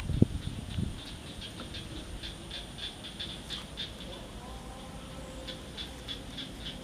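Insects chirping outdoors in a steady, high, rhythmic pulse of about four chirps a second, which pauses briefly partway through and then resumes. A low thump sounds right at the start.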